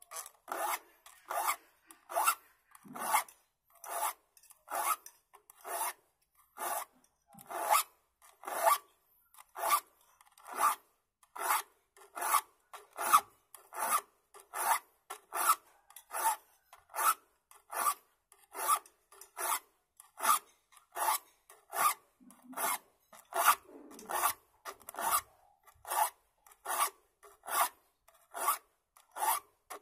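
Slim hand file rasping across the teeth of a wood-cutting handsaw, the teeth being sharpened. Short, even strokes about three every two seconds, with brief silences between.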